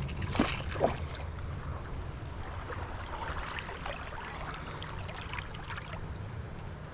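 Steady rush of river water with two short splashes near the start, from a hooked shoal bass being played to the angler.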